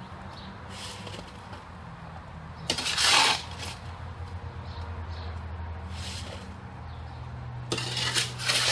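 Hoe scraping through wet concrete in a wheelbarrow: one loud scraping stroke about three seconds in and another cluster near the end, over a steady low hum.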